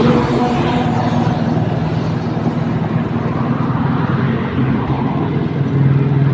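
Motor scooter engine running at a steady riding speed, with wind and road noise. The engine note swells slightly near the end.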